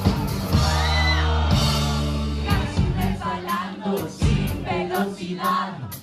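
Rock band playing live, with a sung vocal over sustained bass notes and electric guitar.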